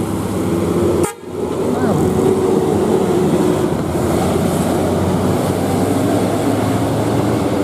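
Bus engine and road noise as a bus passes, with a held tone from its telolet horn for a couple of seconds after a brief break about a second in.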